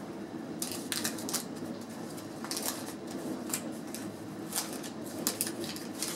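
Wax paper wrapper of a 1988 Fleer baseball card pack crinkling and tearing as it is worked open by hand, in irregular short crackles.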